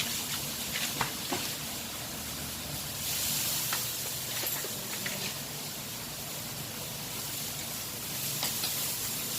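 Steady background hiss with a few faint, short clicks and taps of hands and tools being handled.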